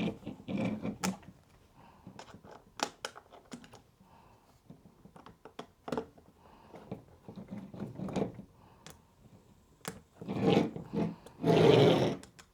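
Scattered clicks, taps and light scrapes of a fencing reel's housing being handled and its screws tightened during reassembly, with louder rubbing scrapes about ten and eleven and a half seconds in.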